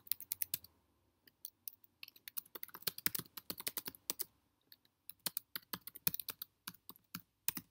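Typing on a computer keyboard: quick runs of key clicks broken by short pauses, one about a second in and another a little past four seconds.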